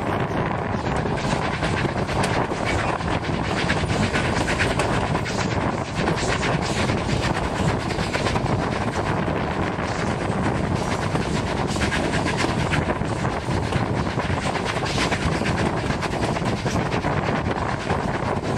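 Narrow-gauge steam train heard from an open coach window while under way: a steady rumble and many short clicks from the wheels on the rails, with the coal-fired locomotive working ahead.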